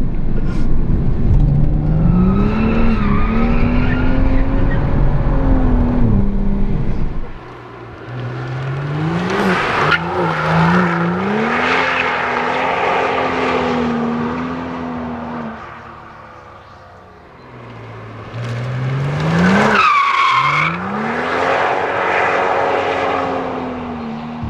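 BMW M135i's turbocharged straight-six with a straight-piped exhaust, revving hard as the car drifts. It is heavy and boomy at first, heard from inside the car, then from the roadside as the engine climbs and holds high revs through two slides. The tyres squeal about ten seconds in and again about twenty seconds in.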